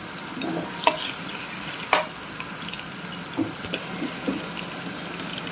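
Chopped vegetables frying in oil in a non-stick pot: a steady sizzle, broken by a few sharp clicks of a utensil against the pot, the loudest about one and two seconds in.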